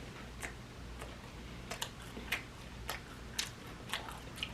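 Quiet, irregular mouth clicks and smacks, about one every half second, of someone tasting and chewing food.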